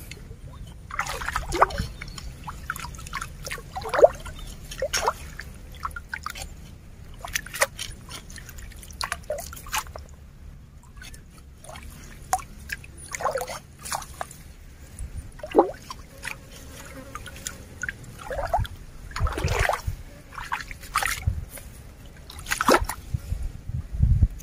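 Small hand scoop net swept and lifted through shallow muddy stream water: a string of separate splashes and plops, with water dripping and trickling off the net. A few dull low thumps come near the end.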